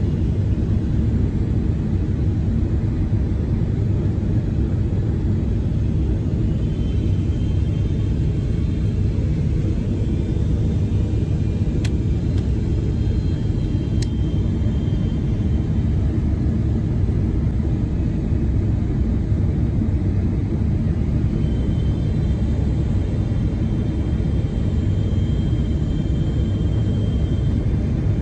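Steady cabin rumble of a Boeing 777-300ER on approach, with its General Electric GE90-115B turbofan running and airflow rushing past the fuselage, heard from a window seat near the engine. A faint high whine comes in about a quarter of the way through, fades, and returns later, and two faint clicks sound near the middle.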